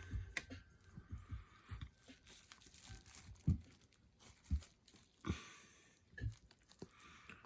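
Packaging crinkling and rustling while an intake air filter is handled, with scattered light knocks and taps, the sharpest about three and a half seconds in.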